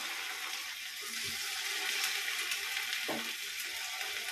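Batter-coated cauliflower pieces deep-frying in hot oil in a small metal pan, a steady sizzling hiss.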